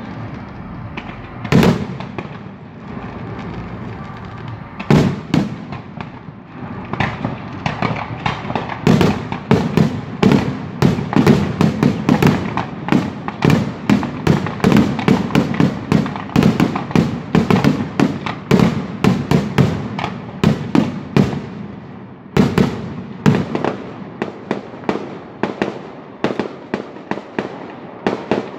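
Fireworks display: a few single aerial shell bursts, then from about eight seconds in a fast volley of bangs and crackles, several a second, with a short lull near the end.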